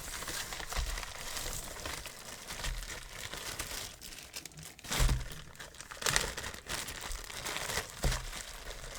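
Packing wrap crinkling and tearing as a lock is unwrapped by hand, with a few thumps of items being handled and set down, the loudest about five seconds in.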